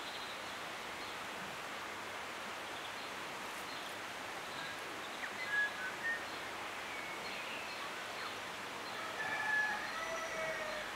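Steady outdoor background hiss with birds calling over it: a few short whistled notes about halfway through, and a longer call of several notes near the end.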